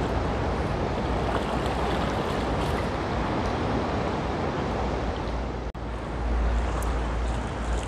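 Ocean surf washing onto the beach, a steady rush of water noise, with wind rumbling on the microphone. The sound drops out for an instant about two-thirds of the way through.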